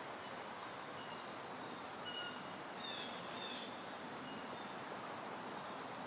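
Outdoor nature ambience: a steady soft background hiss with birds calling in short high chirps and whistles, a brief flurry of chirps about three seconds in.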